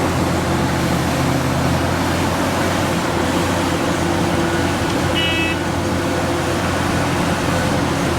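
Cat excavator's diesel engine running steadily at a constant speed. A brief high-pitched tone sounds once about five seconds in.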